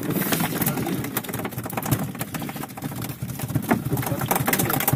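Handline hauled in hand over hand by gloved fishermen: a dense run of crackling, scraping and rubbing as the nylon line and gloves work against each other and the boat's side.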